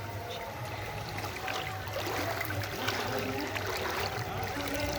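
Floodwater flowing steadily, with faint voices of people in the background.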